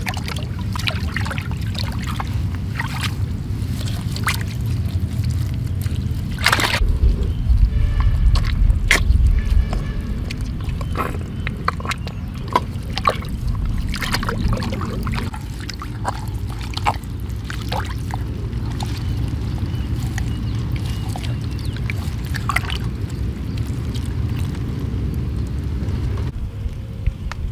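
Hands digging into a wet mud bank and scooping through shallow muddy water: irregular splashing, sloshing and squelching, heaviest about seven to ten seconds in.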